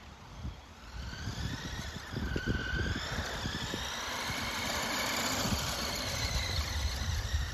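Electric motor of an HBX mini RC monster truck whining as it drives, the pitch rising and bending with the throttle, over a low rumble. It gets louder from about a second and a half in.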